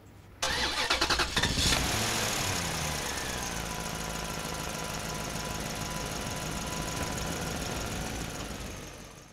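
Intro sound effect for the channel's logo card: a rattling onset about half a second in, then a long steady drone with held tones, one sliding down in pitch, fading out near the end.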